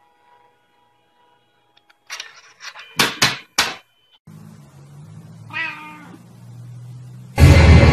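A Scottish Fold cat gives one short meow, bending in pitch, about halfway through over a low hum. A little earlier come a few clicks and three loud sharp knocks. Loud music starts near the end.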